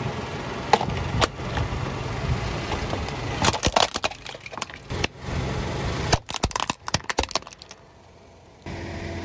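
A car tyre rolling over a plastic toy car-transporter truck and its toy quad bikes, the plastic cracking and snapping in a run of sharp breaks, with the car's engine running low underneath. The cracks come in two clusters, one a little before the middle and a denser one later.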